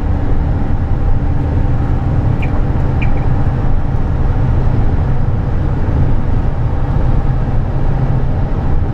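Steady road and engine noise heard inside the cab of a 2010 Ford E-350 cutaway box truck cruising on the highway: an even low drone with no change in pitch.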